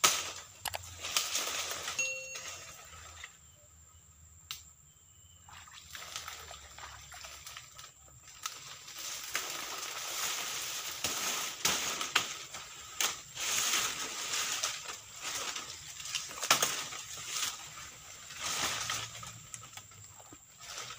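Dry palm fronds and leaves rustling and snapping as they are pulled and cleared by hand, with footsteps splashing in shallow swamp water. The rustling drops away for a couple of seconds near the start, then picks up again.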